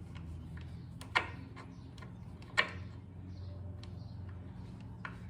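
Hand tool working the lower-unit drain screw of an outboard's gearcase: two sharp metallic clicks, about a second and a half apart, and a few fainter ticks, over a steady low hum.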